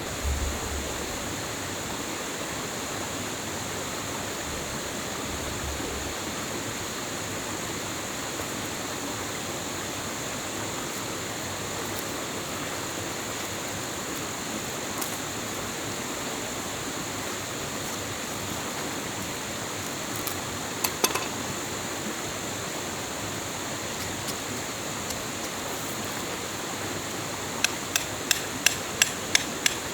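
Steady rushing of a running stream. Sharp knocks cut through it: two around two-thirds of the way in, then a quick run of about eight evenly spaced knocks near the end.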